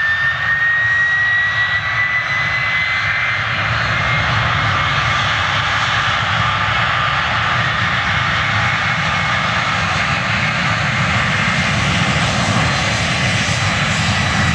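Airbus CC-150 Polaris (A310) jet transport on its takeoff roll, its two General Electric CF6 turbofans at takeoff thrust: a loud, steady noise with a high whine that rises in pitch over the first two or three seconds and then holds.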